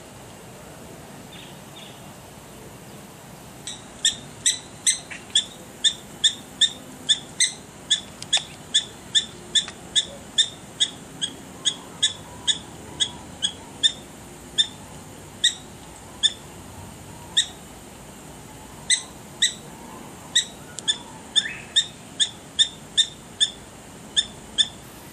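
Prairie dog barking: a long run of short, sharp, high-pitched yips at about two to three a second, starting about four seconds in, with a brief pause about two-thirds of the way through. This is the repeated bark prairie dogs give to warn the colony of danger.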